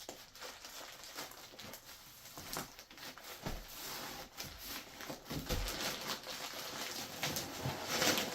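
Plastic packaging rustling and crinkling as a packaged memory foam dog bed insert is handled, with scattered taps and bumps; the rustling grows louder near the end.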